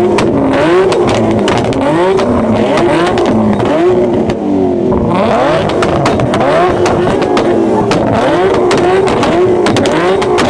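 Several car engines revving hard and repeatedly, their pitch rising and falling over and over, with frequent sharp exhaust pops and bangs from two-step launch limiters.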